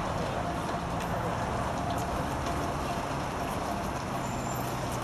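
Outdoor traffic noise on a wet town street: a steady hiss with a low engine hum through most of it, and scattered small clicks.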